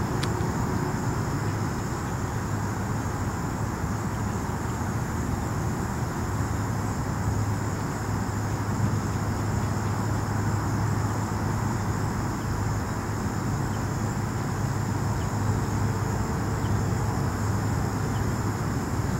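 Steady high chorus of singing insects, two unbroken thin tones, over a low steady hum and a wash of background noise.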